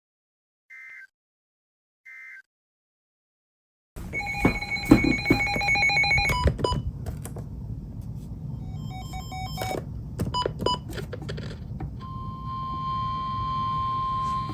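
Three short EAS end-of-message data bursts, about a second apart, close out a severe thunderstorm warning. After about a second and a half of silence, loud ringing, trilling alert tones come in over a rumbling background, ending in a steady single tone for the last couple of seconds.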